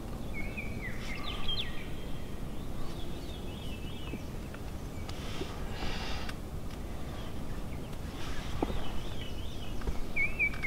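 Small songbirds singing in short chirping, warbling phrases, with a buzzy trill about halfway through, over a steady low background rumble.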